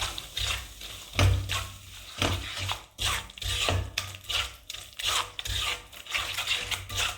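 A spatula stirring and scraping wheat flour around a pan as it roasts in ghee, in repeated scraping strokes about one and a half a second.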